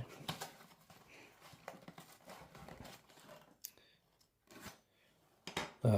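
A straight razor slitting open a mailed package: faint, irregular scraping and rustling of the packaging with a few light clicks.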